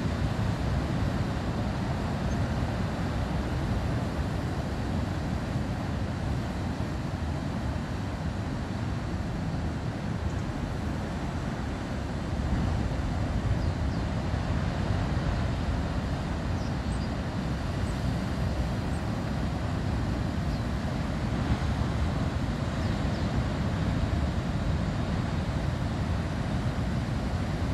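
Storm wind and heavy surf: a steady low rush of breaking waves with wind buffeting the microphone, a little louder from about twelve seconds in.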